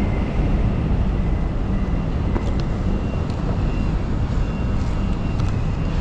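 Steady low rumble of road traffic passing on the overpass, with a few faint clicks.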